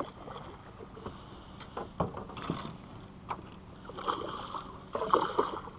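Water lapping against a small boat, with a few short knocks and splashes.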